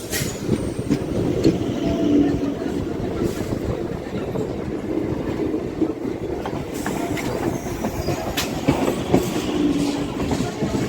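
Suburban electric local train running on the track, heard from on board: a steady rumble of the wheels with a few sharp clicks as they pass over rail joints.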